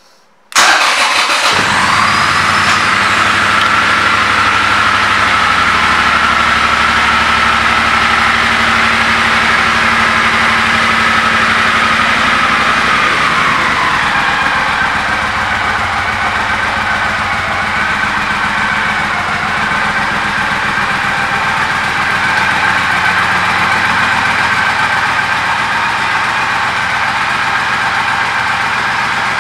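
2010 Triumph Thunderbird's parallel-twin engine starting about half a second in, then idling. The idle runs higher at first and settles to a lower, steady idle about 13 seconds in.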